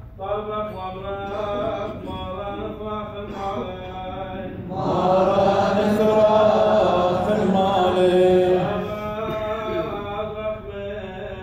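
Syriac liturgical chant of the Church of the East: a male voice chanting a melodic line, joined by several voices in a louder stretch from about five seconds in to about nine seconds.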